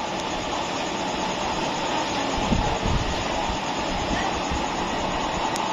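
Five waste-oil burner stoves running at once, a steady rushing noise of flame and forced air. A few low thumps of wind on the microphone come about halfway through.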